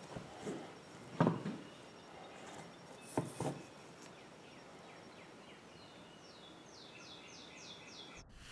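A few soft knocks in the first few seconds, then a bird singing a quick run of descending chirps, about five a second, near the end.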